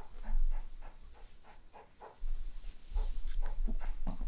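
Long-coat Chihuahua panting rapidly, about four breaths a second. The panting fades out about a second in and starts again louder a little after two seconds.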